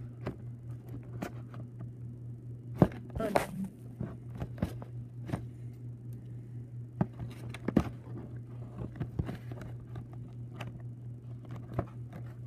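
Hands opening and handling a Beyblade box close to the microphone: irregular clicks, taps and scraping, with sharp knocks about three seconds in and near eight seconds. A steady low hum runs underneath.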